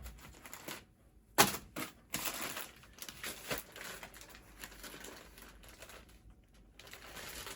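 A shipping package being handled and opened: packaging rustling and crinkling, with a few sharp clicks and one louder knock about a second and a half in.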